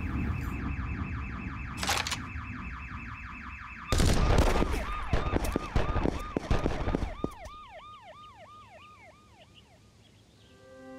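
Cartoon action sound effects: a fast-pulsing alarm, with a single shot about two seconds in. About four seconds in, a loud burst of rapid gunfire lasts around three seconds, with a police siren yelping over it about three times a second and fading away.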